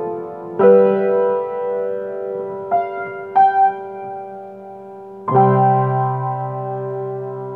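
Piano-type keyboard playing slow, held chords with no singing, in the key of C. A chord is struck about half a second in, two single higher notes follow around three seconds, and a fuller chord with a low bass note comes a little after five seconds and rings out, slowly fading.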